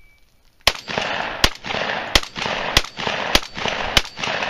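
Competition shotgun firing six shots in quick succession, about two-thirds of a second apart, starting about half a second in. The gaps between the shots stay loud rather than going quiet.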